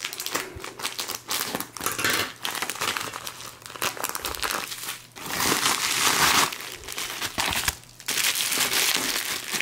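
Scissors snipping open a mailing envelope, then hands crinkling and pulling out a bundle of bubble wrap. Dense rustling with louder handling near the end.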